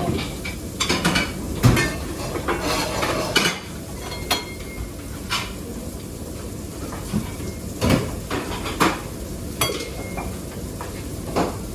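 Metal pots, pans and utensils clattering: irregular knocks and clinks, a few ringing briefly, over a steady background hiss.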